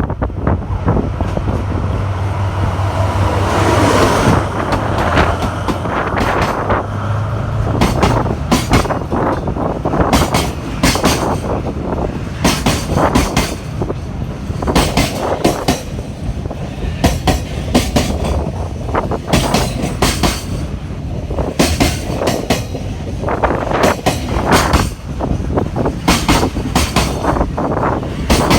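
Freight train passing close by: the locomotive's steady low hum with a falling pitch in the first few seconds, then a long string of wagons clattering over rail joints, the clacks coming in quick pairs.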